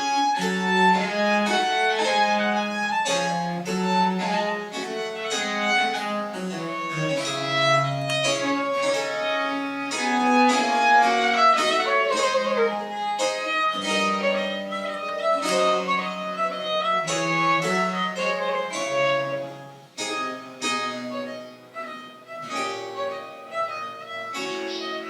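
French Baroque chamber music: a bowed string melody, violin-like, over a moving bass line, notes changing quickly, with a brief softer moment near the end.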